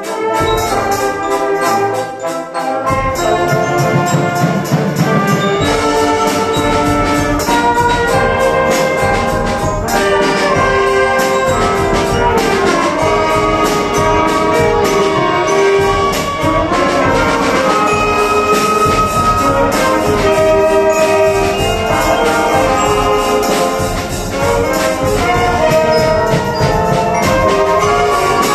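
A school wind band of woodwinds, brass and percussion playing a melodic piece: sustained brass and woodwind chords over drums keeping a steady beat. The low brass comes in fuller about three seconds in.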